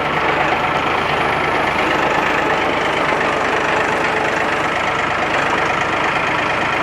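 A motor vehicle's engine running steadily at idle, without rising or falling.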